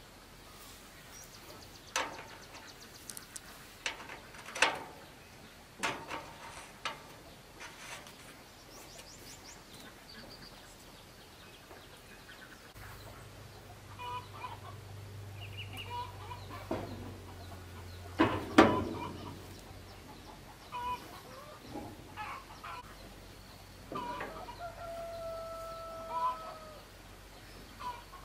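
Socket wrench clanking against the sheet-metal casing of a rice threshing machine as its bolts are worked, a scatter of sharp metal knocks with the loudest about two-thirds of the way through. Chickens cluck in the background, and a rooster crows near the end.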